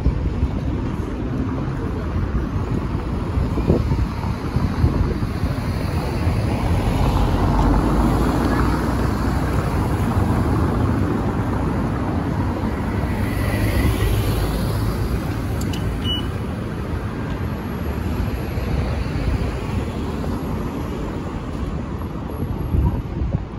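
City street traffic: cars driving past on a cobbled road, a steady rumble of engines and tyres that swells as vehicles pass near the middle.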